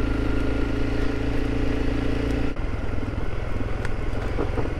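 Honda CRF300 Rally's single-cylinder engine running steadily while riding a dirt track at low speed. About two and a half seconds in, its note drops suddenly as the throttle is closed, and it carries on at a lower, pulsing beat.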